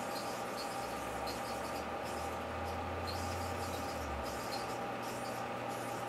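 A large 1984 Kenmore microwave oven running with a steady hum, its deep low tone growing stronger from about a second in until just past four seconds. Faint high squeaky chirps recur about twice a second over the hum.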